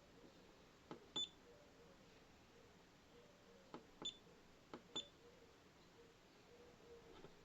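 Laser distance meter's buttons pressed three times, each click followed by a short, high electronic beep.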